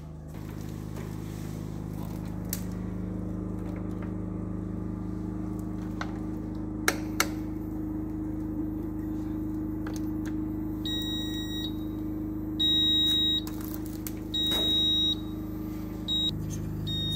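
Digital electrical tester beeping: a run of high-pitched beeps, each about half a second to a second long, starting about two-thirds of the way in. A steady low electrical hum runs underneath, and there are two sharp clicks about seven seconds in.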